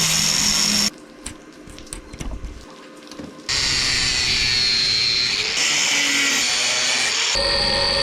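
Angle grinder running on steel, its whine changing pitch between several short clips. A quieter stretch of sparse clicks comes between about one and three and a half seconds in.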